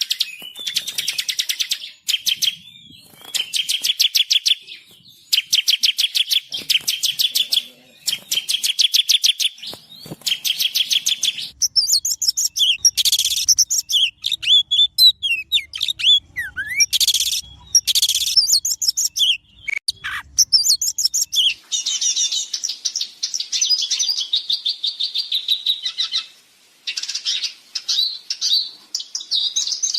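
Songbirds singing loudly: bursts of rapid trills about a second long, separated by short gaps. Varied chirps and whistles follow from about a third of the way in, giving way to continuous warbling in the last third.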